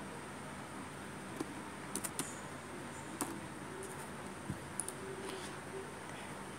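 A handful of sharp, separate clicks from a computer keyboard and mouse, a few keystrokes and then mouse clicks, over a steady background hiss.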